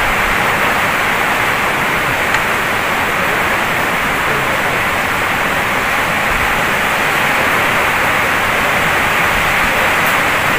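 A steady, even hiss like static, unchanging throughout.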